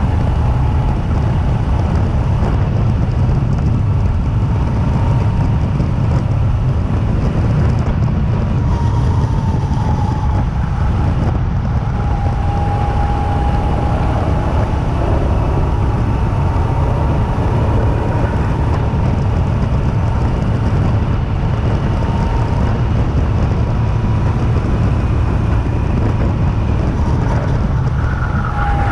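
Two-seater go-kart running at speed on a track: a loud, steady motor rumble with wind on the kart-mounted microphone, and a whine whose pitch rises and falls a little as the kart speeds up and slows through the corners.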